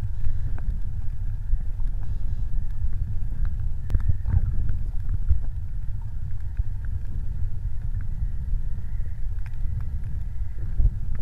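Underwater ambience picked up by a camera submerged on a coral reef: a steady low rumble of water movement and handling noise, with occasional faint clicks.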